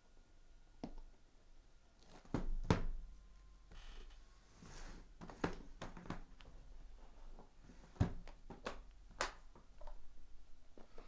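Trading cards and their packaging being handled on a table: irregular clicks, taps and knocks, with a short rustle about halfway through.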